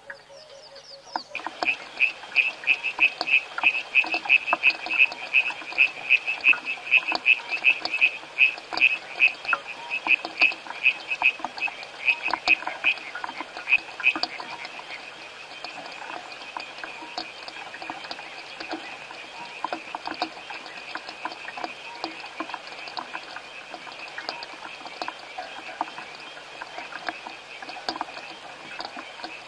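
A chorus of frogs. About a second in, a loud, high-pitched rapid call starts, repeating about three times a second. After about fourteen seconds it gives way to a softer, more continuous chorus of frogs at the same pitch.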